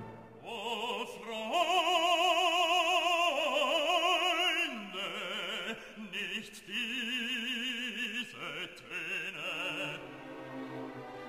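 Background music: an operatic singing voice holding long notes with a wide vibrato, stepping from pitch to pitch, fading into quieter accompaniment near the end.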